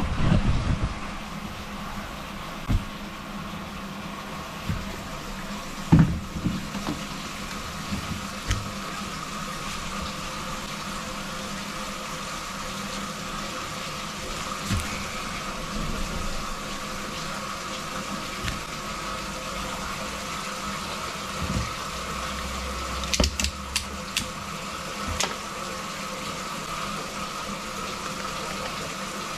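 Faucets running steadily and water flowing down newly reconnected bathtub and sink drains in a flow test of the repaired drain line, with a few short knocks.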